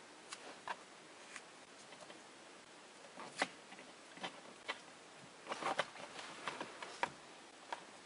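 Hands handling wiring and a plastic connector behind a car's lower dashboard trim: scattered faint clicks and light rustles, with a short run of them a little past the middle.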